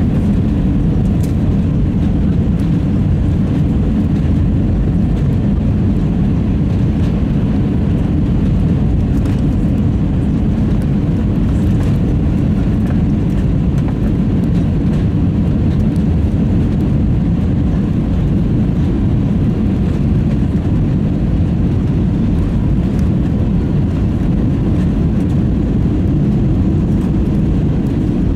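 Cabin noise of an Airbus A320 on final approach: steady engine and airflow noise heard from inside, mostly low-pitched and even, with no change.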